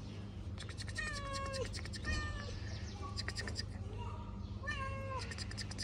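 A kitten meowing about five times in short, high-pitched calls.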